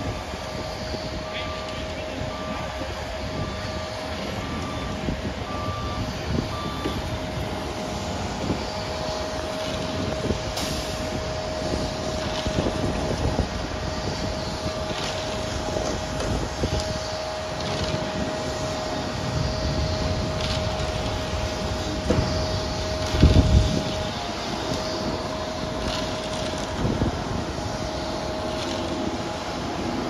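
Heavy construction machinery running steadily with a constant whine. A reversing alarm beeps about once a second for the first several seconds, and a single heavy thump comes about two-thirds of the way through.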